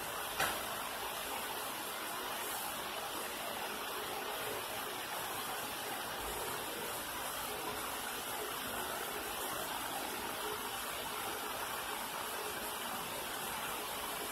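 MIG welding arc sizzling steadily, with a single sharp click about half a second in.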